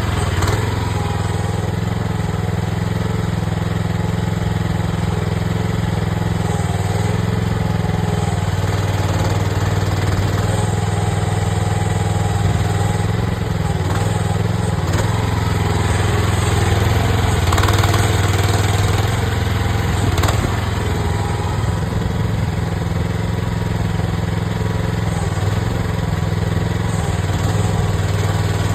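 AGT mini excavator's engine running steadily under digging, with a wavering whine rising and falling now and then as the hydraulics work, and a few knocks of the bucket.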